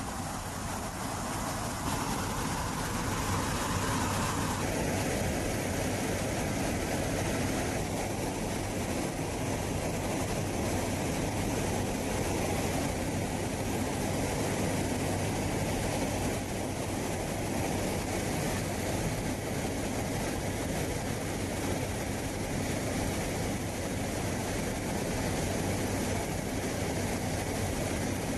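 Steady military aircraft engine noise, a continuous rushing drone whose character shifts abruptly about two seconds in and again about five seconds in.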